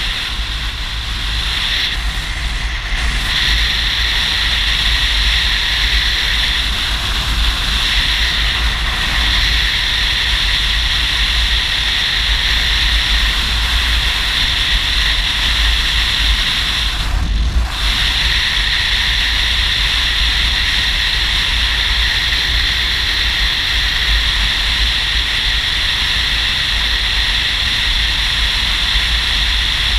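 Steady wind rush on the microphone mixed with engine and road noise from a touring motorcycle cruising at road speed, with one brief dip in the hiss partway through.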